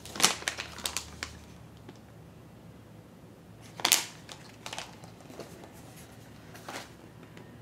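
Candy-kit packaging being handled: plastic pouches crinkling and cardboard boxes clacking and sliding as they are picked up and set aside. The sound comes in short bursts, a quick cluster at first and the loudest crinkle about four seconds in, with smaller ones after.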